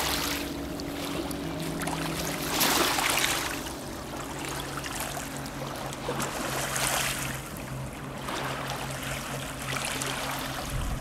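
Small waves of the Danube washing onto a pebble shore, swelling and fading every few seconds, the loudest swell about two and a half seconds in, over a steady low hum.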